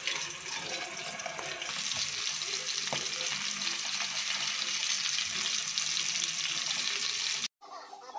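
Mackerel shallow-frying in hot oil in a pan: a steady sizzle with fine crackling, cutting off suddenly near the end.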